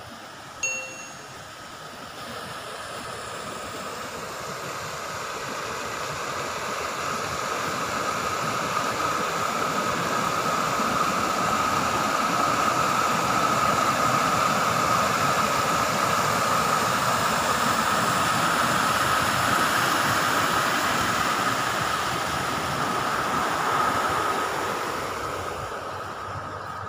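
Water pouring over a stone irrigation weir into a channel: a steady rushing roar that grows as it is approached, is loudest in the middle, and fades toward the end. There is a brief high-pitched blip just after the start.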